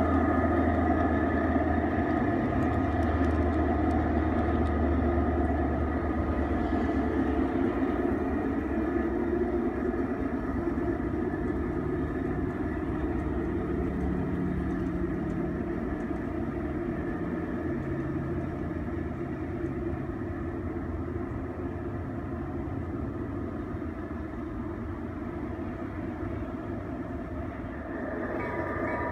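Large-scale garden model train running on its track and moving away: a low rolling rumble that dies out after about seven seconds, then a fainter steady running hum that slowly fades.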